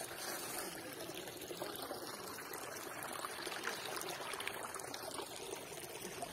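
Spring water trickling over rocks into a small pool, a steady running-water sound.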